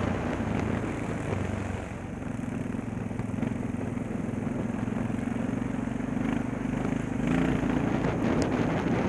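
Dirt bike engine running under way, heard on board the bike, easing off about two seconds in and pulling harder again about seven seconds in.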